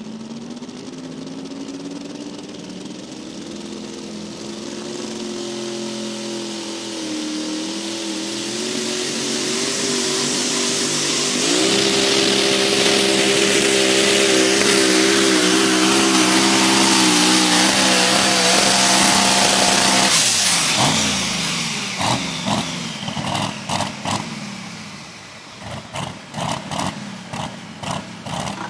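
Twin-turbocharged pulling truck's engine at full throttle hauling a sled, its note climbing steadily with a loud hiss over it. About two-thirds of the way through the throttle is cut and the engine drops off sharply, then it gives a run of short, sharp blips.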